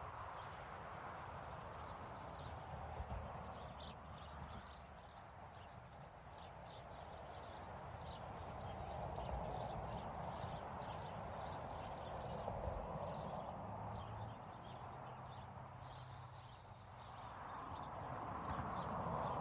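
Outdoor street ambience: a soft wash of noise that swells and fades slowly, with a steady scatter of light, quick clicks throughout.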